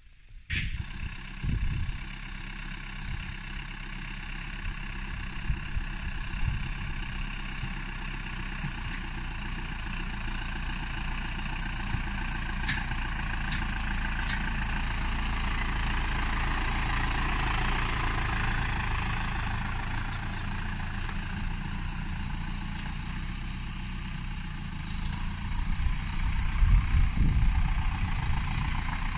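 Tümosan 52.100 tractor's diesel engine running steadily, growing somewhat louder through the middle, with a louder stretch and a few knocks near the end.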